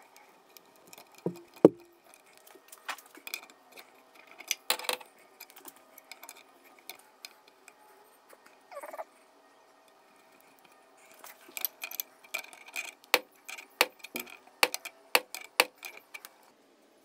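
Brass compressed-air fittings handled and screwed together by hand: small metallic clicks and taps, with two louder knocks early on. Later comes a run of sharp metal clicks as an adjustable wrench is fitted to the brass fitting to tighten it.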